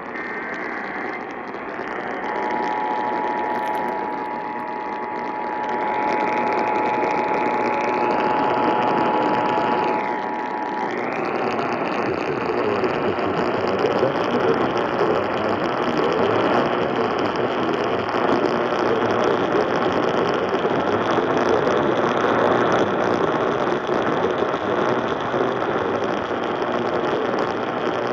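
Distant AM radio reception of KFI 640 under heavy static. It opens on the tail of an Emergency Alert System data burst. About two seconds in, the two-tone EAS attention signal (853 and 960 Hz) begins and holds steady for about eight seconds before cutting off. Static and hiss follow to the end.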